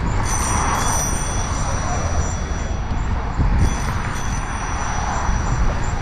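Steady wind rumble and road-traffic noise while riding a bicycle, with pedestrians' voices in the background.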